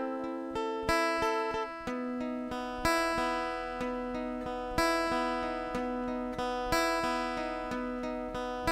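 Acoustic guitar playing an instrumental passage of a song: ringing plucked notes with a strummed chord about once a second.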